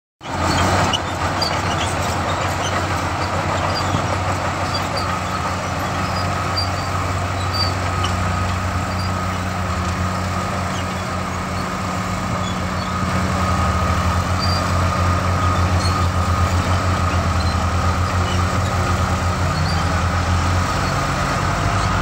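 Komatsu D65P crawler bulldozer's diesel engine running steadily under load as the dozer works soil, with a steady high whine over it. It starts abruptly and grows somewhat louder about halfway through.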